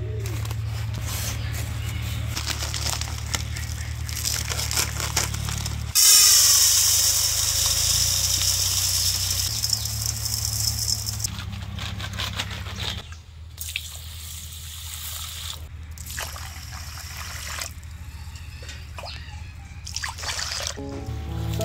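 Dry rice grains poured into a stainless-steel bowl: a loud, even hiss that starts suddenly about six seconds in and lasts about five seconds. Later, water is poured onto the rice in the bowl, splashing.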